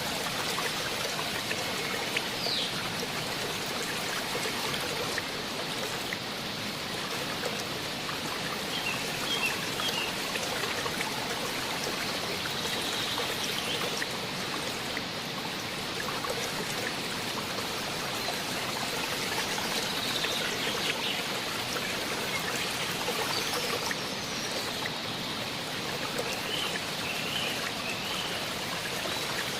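Steady rush of water from a waterfall and its stream, with a few faint high chirps now and then.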